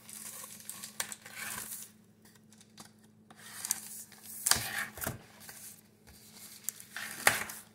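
A cardboard shipping box and its packing being handled and opened by hand: uneven rustling and scraping, with a few sharp knocks, the loudest near the end.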